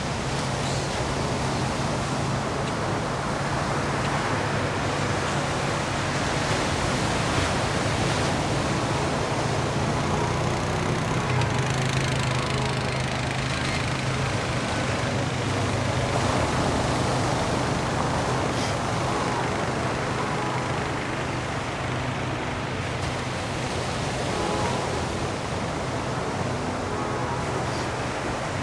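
Small ocean surf breaking and washing up on a sandy beach, a steady rushing that swells and eases, with a low steady hum underneath.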